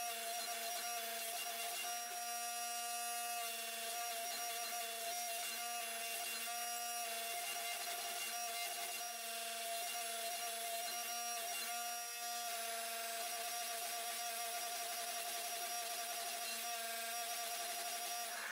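Hydraulic forging press's motor and pump running with a steady hum and whine, made of several held tones over a faint hiss.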